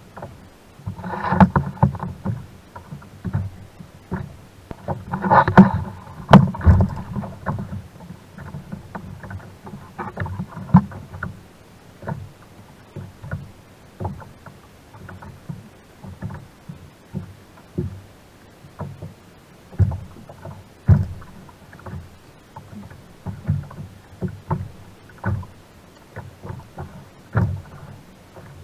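Water lapping against a plastic fishing kayak's hull, with frequent knocks and taps as gear is handled on board, and two short pitched stretches about one and five seconds in.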